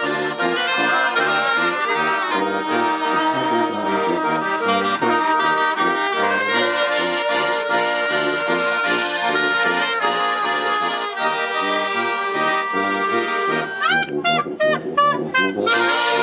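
Accordion, trumpet, clarinet and tuba playing a hymn together, with the accordion prominent over the brass. Near the end there is a quick, warbling run of high notes lasting about two seconds.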